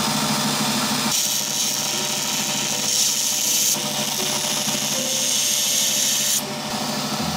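Belt grinder running, with a steel wagyuto knife blade pressed against the abrasive belt from about a second in: a loud high grinding hiss over the motor hum. The hiss eases a little partway through and stops about a second before the end, leaving the grinder's hum.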